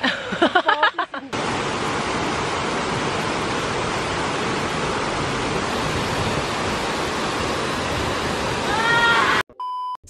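Waterfall pouring over a rock ledge into a pool: a steady rush of falling water. Brief voices come before it, a short voice rises over it near the end, and a short steady electronic tone closes it.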